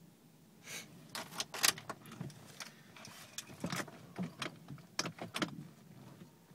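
Irregular clicking and short metallic rattles, about a dozen over five seconds, from a Jeep Grand Cherokee WJ with an electrical fault that sets off clicking when the key is turned.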